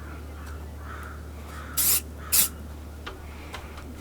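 Two short bursts of spray paint hissing from an aerosol rattle can of flat earth brown, about half a second apart, over a steady low hum.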